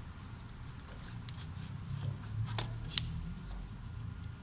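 A few light clicks and taps of metal parts being handled as the glass-drilling machine's table insert is repositioned, over a low steady hum.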